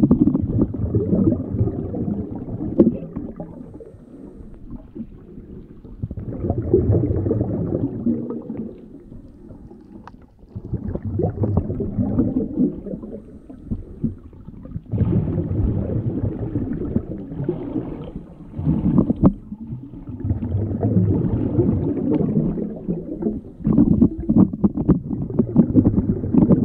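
Muffled underwater sound of moving water, a low rumbling and gurgling that swells and fades in surges every few seconds, with scattered clicks. It is heard through an action camera submerged in shallow water.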